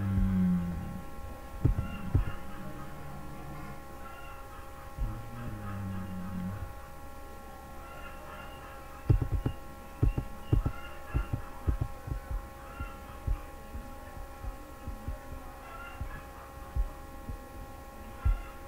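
A steady background hum of several tones, with two brief low hums, one near the start and one about five seconds in, and irregular low thumps and knocks through the second half.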